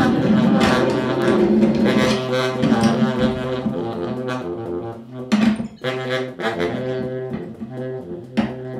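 Free-improvised music: a baritone saxophone holding low notes that step from pitch to pitch, with electronic and turntable sounds around it and a couple of sharp noisy hits about halfway and near the end.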